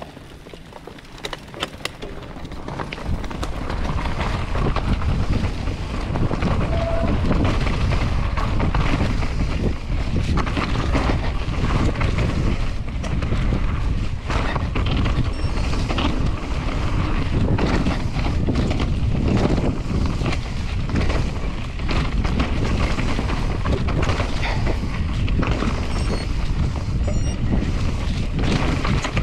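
Enduro mountain bike descending a rough trail at speed: wind buffets the action camera's microphone and the bike rattles and clatters over roots and rocks. It starts quiet and builds up over the first few seconds, then stays loud and steady.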